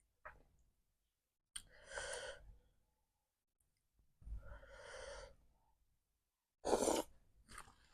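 Three heavy, breathy sighs, the last one the loudest and sharpest: a person exhaling hard against the burn of very spicy chili.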